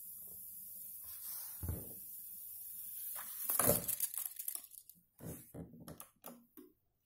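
TEAC A-2300SR reel-to-reel tape deck fast-winding tape with a steady hiss, then stopped about three and a half seconds in: a loud rush of noise as the reels brake to a halt. Several short clicks and knocks follow as the deck's buttons are handled.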